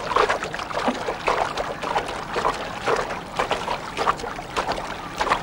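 A person swimming in a river, their arm strokes splashing the water in an irregular run of two or three splashes a second.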